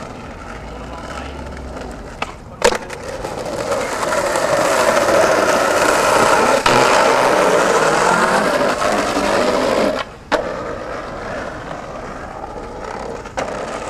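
Skateboard wheels rolling over rough concrete, growing louder about four seconds in and dropping away suddenly about ten seconds in. Sharp clacks from the board come at a few points: about two and a half seconds in, just after ten seconds and near the end.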